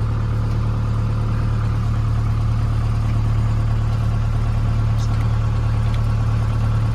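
John Deere 6220 tractor's diesel engine idling steadily, heard from inside the cab, with a faint click about five seconds in.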